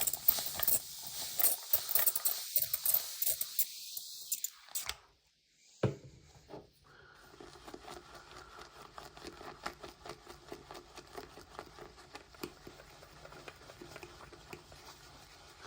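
Synthetic shaving brush whisking soap lather in a ridged 3D-printed plastic bowl: a crackly, wet hiss for about five seconds, then a short pause with a click and a fainter, steady swishing.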